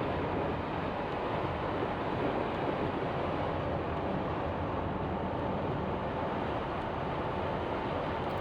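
Steady road and tyre noise of a car driving on a wet road, heard from inside the cabin, with a low rumble underneath.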